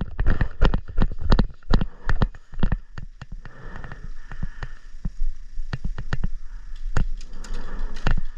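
An irregular series of sharp clicks and knocks, close together for the first couple of seconds, then sparser, over a faint low rumble.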